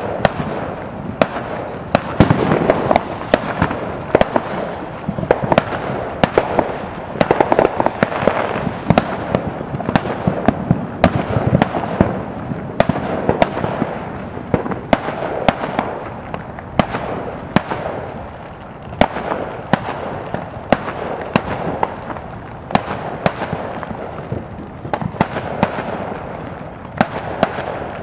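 Many fireworks and firecrackers going off at once across the neighbourhoods: a constant stream of sharp pops and bangs, several a second, over a continuous rumble of farther blasts.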